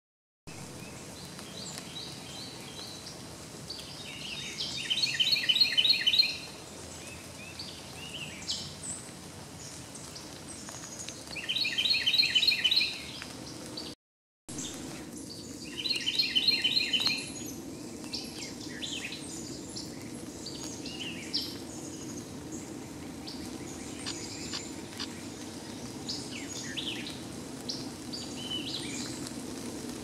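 A songbird sings three short bursts of rapid, evenly repeated notes, each under two seconds long, with fainter chirps from other birds in between. The sound drops out briefly about halfway through.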